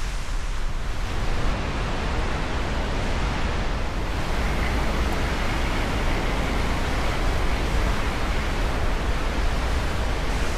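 Steady rushing noise of fast water from the river and falls at Goðafoss, with a deep rumble underneath.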